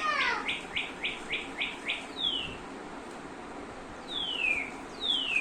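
Sound-activated toy lovebird chirping: falling whistles alternating with quick, even runs of short chirps, about four a second, with a pause of a second or so in the middle.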